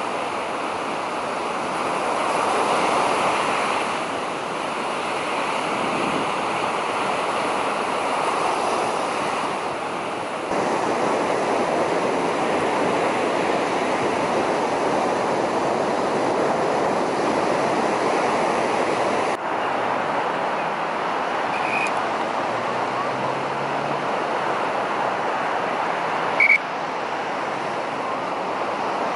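Surf breaking and washing up a sandy beach: a steady rushing noise that shifts abruptly a couple of times. A brief sharp click comes near the end.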